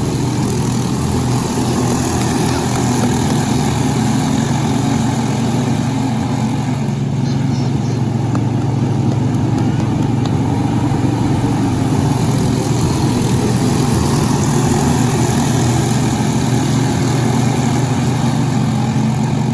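An engine running with a steady, unbroken drone that holds its pitch throughout.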